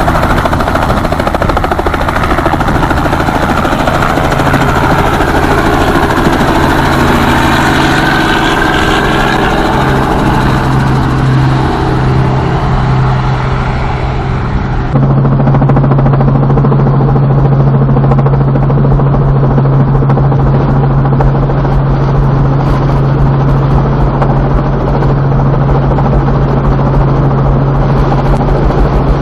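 Robinson piston helicopter heard from outside, a wide rotor-and-engine noise with shifting pitch as it flies. About halfway through this changes abruptly to the steady, muffled low drone of the engine and rotor heard inside the Robinson's cabin.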